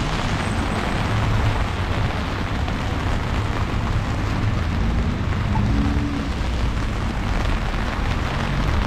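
Heavy freezing rain falling steadily, a dense even hiss, over a low rumble of city traffic, with a brief engine tone a little past halfway.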